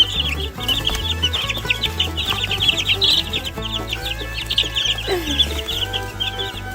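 A brood of two-week-old Barred Rock chicks peeping constantly, many short high chirps overlapping as they crowd over cooked egg. A background music track with a steady bass line runs underneath.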